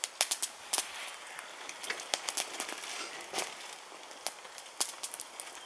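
Wood campfire crackling, with irregular sharp pops several times a second.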